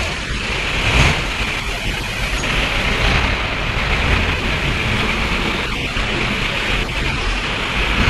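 Steady street traffic noise through a phone microphone: an even wash of engines and tyres with no single vehicle standing out.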